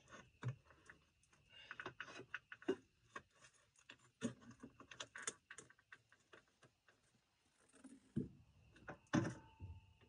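Irregular light metallic clicks and clinks with a few dull knocks near the end, from hand work on a floor jack holding a backhoe transmission.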